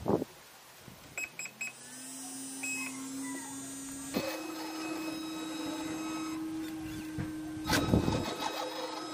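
Radio-controlled model truck electronics: a few short high beeps, then a hum that rises in pitch and settles into a steady electric whine, stepping to a slightly higher steady tone about four seconds in. A couple of knocks at the start and a short burst of noise near the end.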